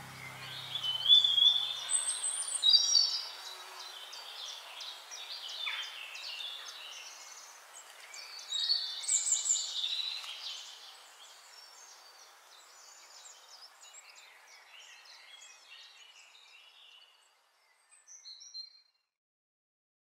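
Several small birds chirping and singing together, many overlapping high twittering calls; the chorus is busiest in the first half and thins out, dying away near the end.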